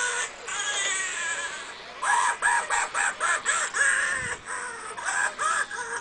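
Pleo RB robotic dinosaur vocalizing in synthesized animal-like calls: one longer call, then from about two seconds in a rapid run of short chirping calls, several a second.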